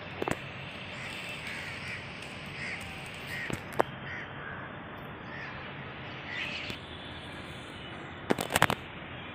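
House crows cawing, a series of short caws spread through the first seven seconds. A few sharp clicks stand out: one near the start, one about four seconds in, and a quick cluster near the end.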